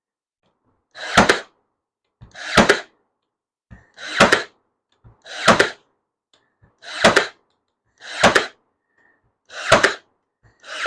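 Ryobi P322 18V cordless AirStrike brad nailer firing 1-1/4" brad nails into cedar fence pickets: about eight shots, one roughly every second and a half, each a sharp double crack.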